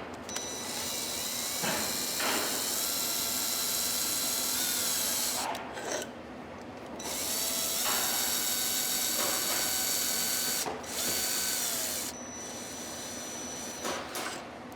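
Power drill/driver running in several runs of a few seconds with short pauses between, a steady motor whir with a slight shift in pitch as it drives the screws that fasten a gasketed cover onto a steel octagon box; the last run is quieter.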